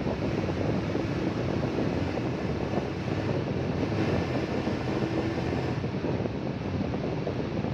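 Rainstorm: heavy rain falling steadily with gusting storm wind.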